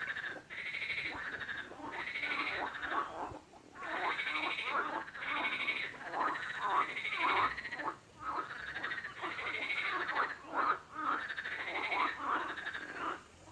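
Frogs croaking: a dense run of pulsed calls following one another closely, with a few brief pauses.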